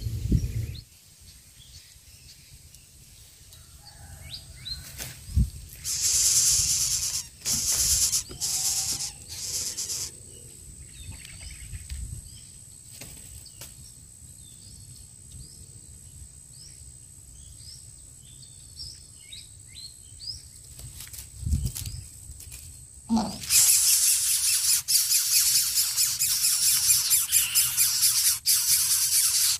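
Faint chirps of small birds, with a few short hissing bursts, then from about three-quarters of the way in a loud, continuous harsh rattling hiss: coucal nestlings begging as a parent comes to the nest.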